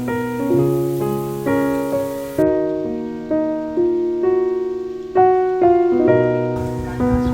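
Background piano music: a slow, gentle melody of struck notes and chords, each ringing and fading before the next.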